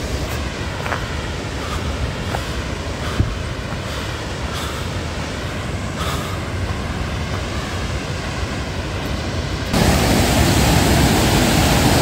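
Steady rushing of a waterfall, with a few faint knocks, one sharper about three seconds in; near the end the rush turns abruptly louder and brighter as the falls are close by.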